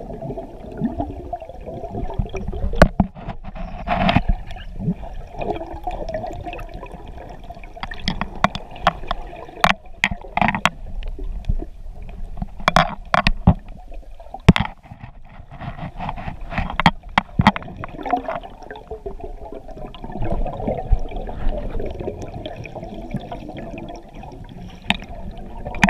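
Muffled underwater noise from a camera moving through spring water, with frequent sharp clicks and knocks scattered throughout.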